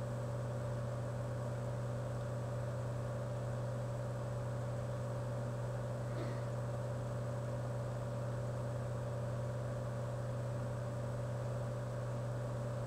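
Steady low electrical hum with a faint hiss, unchanging, with one faint tick about halfway through.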